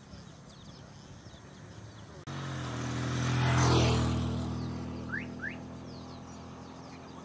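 A motor vehicle passing on the road: its engine and tyre sound swells to a peak about a second and a half after an abrupt start, then fades away. Two short rising chirps come near the end.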